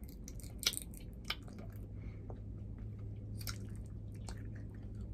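Chewing of sour candy gumballs: faint wet mouth clicks and smacks, a few of them sharper, over a low steady hum.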